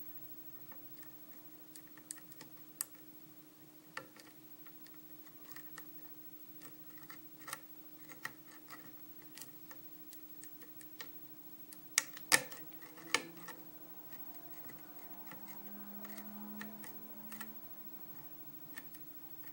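Small metallic clicks and light scraping of a lock pick and tension wrench working the pin stack of a 6-pin Arrow pin-tumbler lock with spool pins, single-pin picking. The clicks are irregular and sparse, with two sharper ones about twelve and thirteen seconds in.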